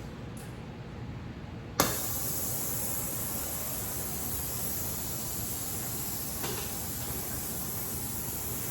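Gas welding torch flame hissing steadily. About two seconds in, a sudden sharp click, after which the hiss is louder and brighter.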